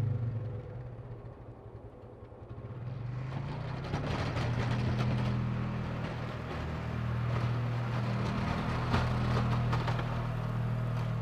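Polaris Ranger 6x6 UTV engine running steadily as it drives forward with a plow on the front, joined from about three and a half seconds in by the rough scraping of the plow blade pushing snow.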